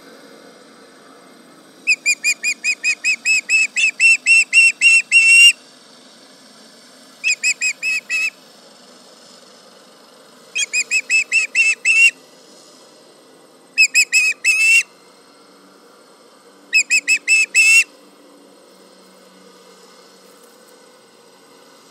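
Osprey alarm calling: five runs of rapid, high whistled chirps. The first run lasts a few seconds and the four later ones about a second each.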